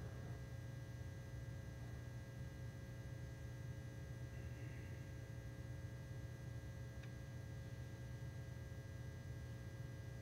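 Quiet room tone: a steady low hum with a few faint steady tones above it, and a single faint click about seven seconds in.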